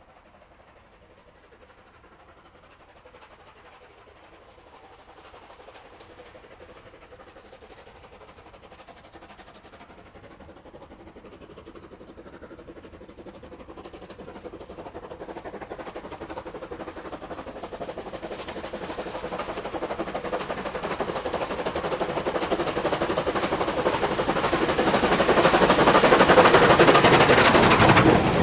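Steam locomotive working hard as it approaches, its rapid exhaust beats growing steadily from faint to loud and loudest near the end.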